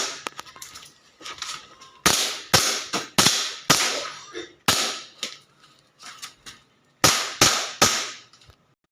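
WE gas blowback airsoft gun firing a string of shots, sharp cracks spaced about half a second to a second apart, ending in a quick run of three, with fainter clicks between the shots.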